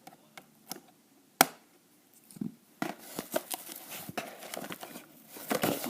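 Doll packaging being opened by hand: a few light clicks, one sharp click about a second and a half in, then a busy run of rustling and clicking from about halfway.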